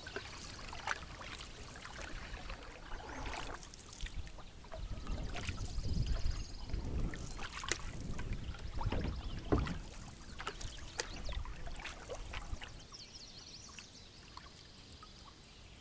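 Canoe paddle dipping and pulling through calm lake water, with splashes and drips against the canoe, loudest in the middle. A faint high trill comes and goes a few times.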